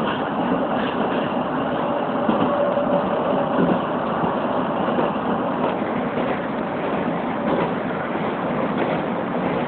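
Keisei 3700 series electric commuter train running at speed, heard from inside the front car: a steady running noise of wheels on the rails.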